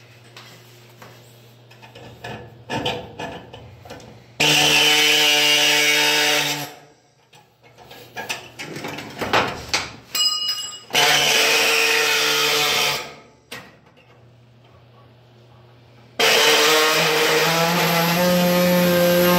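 Handheld power tool running in three bursts of about two to three seconds each, with handling clicks and rustles in between.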